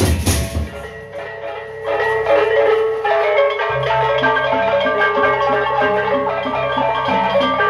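Sasak gendang beleq gamelan ensemble playing: sharp drum and cymbal strikes at the start, then a ringing melody of pitched bronze gongs builds up. About halfway a low steady tone comes in under an even pulse of short, low pitched notes.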